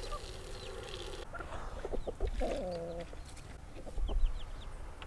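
Chickens clucking, with a longer pitched hen call about two and a half seconds in, and brief high chick peeps scattered throughout.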